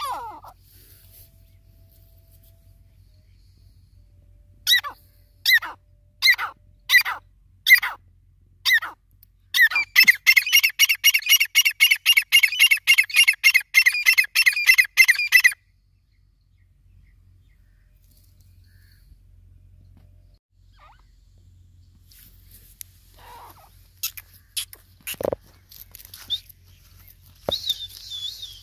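Grey francolin calling: a few single notes about two-thirds of a second apart, then a fast, ringing series of repeated calls lasting about six seconds that stops abruptly. Scattered rustles and knocks near the end.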